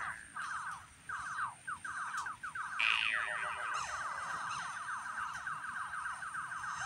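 Noise generated on an instrument: a fast, even stream of chirping pulses, with a short arching sweep that rises and falls about three seconds in and recurs every few seconds.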